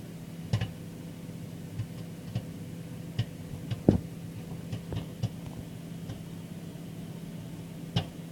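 Microwave popcorn kernels popping in the bag inside a running microwave oven, about a dozen sharp pops at irregular intervals, the loudest about four seconds in, over the oven's steady hum. The pops come well under two seconds apart, so the popcorn is still cooking and not yet ready.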